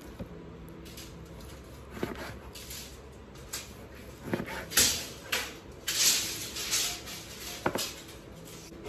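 Handling noises of measuring and marking a wall: a few sharp knocks and clicks, with bursts of scraping rustle in the middle as a steel tape measure is pulled out and handled.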